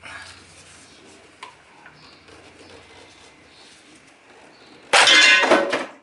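Light clicks of a stuck part being worked loose from the timing-chain front of a BMW M44 engine, then about five seconds in a loud clattering burst of about a second as the part drops down into the engine's oil.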